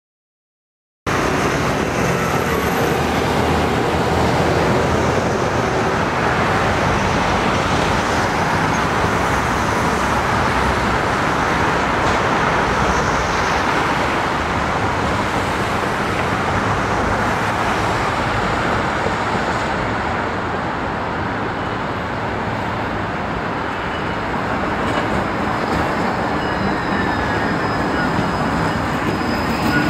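Steady road traffic noise from passing cars, starting abruptly after a second of silence. Near the end a low-floor electric tram draws close on the tracks and the sound grows louder.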